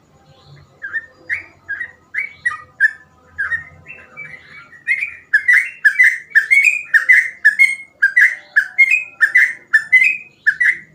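Yellow-vented bulbul (trucukan) singing a string of short, bubbling notes. The notes are spaced out at first, then come fast and loud from about halfway, at roughly three a second.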